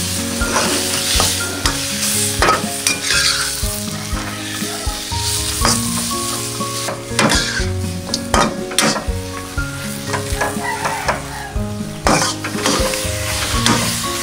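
Chicken pieces sizzling in a steel wok while a metal spatula stirs and scrapes them, knocking sharply against the wok many times.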